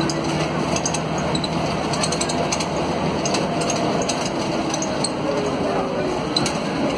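Mercedes-Benz OM457LA diesel engine of an articulated city bus running steadily under way, heard from inside the passenger cabin, with continual light rattling and clinking from the bus's interior fittings.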